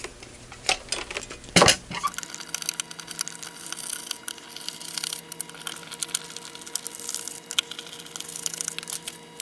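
Small irregular clicks and ticks of a handheld oscilloscope's plastic case being turned over and set down, then a small screwdriver backing out the case screws, with the screws being picked out by hand. A faint steady hum sits underneath from about two seconds in.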